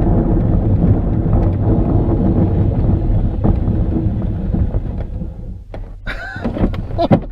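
Glider's main wheel rumbling and knocking over the runway during the landing rollout, heard from inside the cockpit. The rumble dies away about five seconds in as the glider rolls to a stop. A short burst of noise follows near the end.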